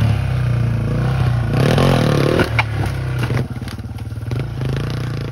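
Yamaha TW200's single-cylinder four-stroke engine revving under load as the bike climbs over a log step, with the knobby rear tire scrabbling and clattering against the wood and dirt. About three and a half seconds in the engine gets quieter as the bike pulls away.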